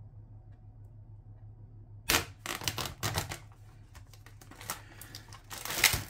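Plastic food tray and its film lid being cut open with a serrated knife and peeled back: sharp crackling and crinkling of plastic in a cluster about two seconds in and again in a loud burst near the end.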